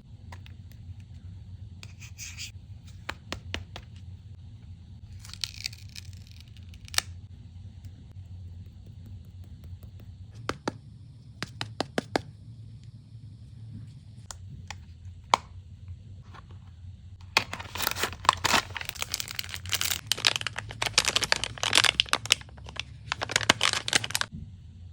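Makeup packaging being handled: scattered light taps and clicks, then near the end a dense run of tearing and crinkling as the wrapping is torn open, over a low steady hum.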